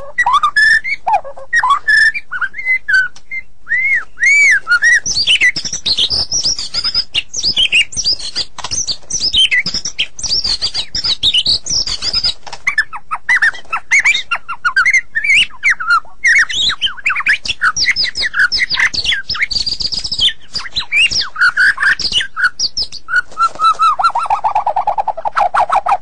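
White-rumped shama (murai batu) singing loudly and without pause, a varied song of clear whistled slurs and quick clicking chatter. Near the end comes a fast trill that drops in pitch.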